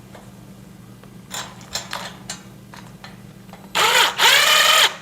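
A few light clicks, then an impact driver runs in two short bursts near the end, its motor whine rising and falling with each trigger pull as it drives a screw into the shelf frame.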